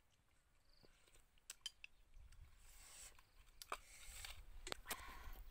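Faint handling of a spoon and ceramic bowl on a saucer: a few sharp clicks, then soft rustling with more clinks as the dishes are set down.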